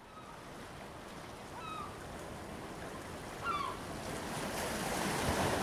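Sea surf washing on the shore, fading in and slowly growing louder, with two brief high calls, one near the middle and one a little later.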